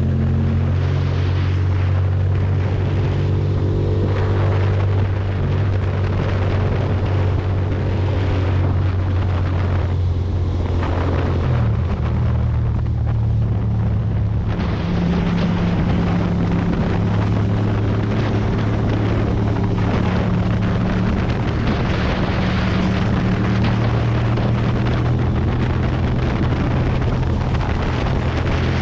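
Ducati Monster's V-twin engine running at a steady riding speed, with wind rushing over the microphone. The engine note changes pitch about twelve seconds in and holds at the new pitch.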